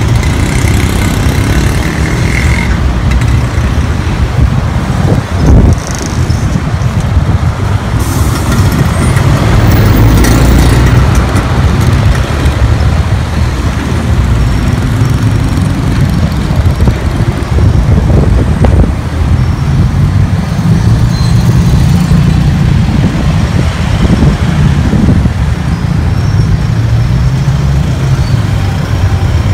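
Busy city street traffic: car and motorbike engines running and passing close by in a steady low rumble, with a brief low thump about five seconds in.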